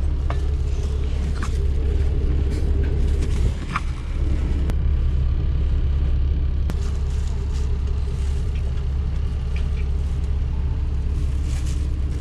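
Steady low engine rumble of a highway coach heard from inside its passenger cabin, with a few faint clicks or rattles.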